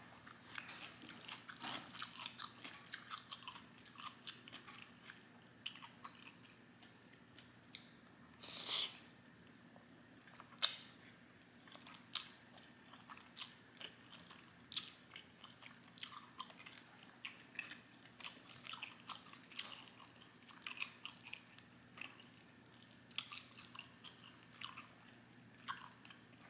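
A person chewing food close to the microphone: many small wet mouth clicks in an irregular rhythm, with one louder, longer noise about nine seconds in.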